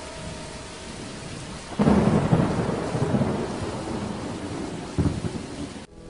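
A sudden loud clap of thunder a little under two seconds in, rumbling as it slowly fades, with a second shorter clap about five seconds in, over steady rain. The sound cuts off abruptly just before the end.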